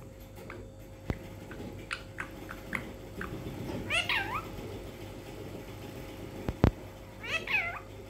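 Indian ringneck parrot vocalising at its reflection in a mirror: short chirps, then two longer calls that bend in pitch, about four seconds in and near the end. A few sharp taps fall between them, the loudest shortly before the last call.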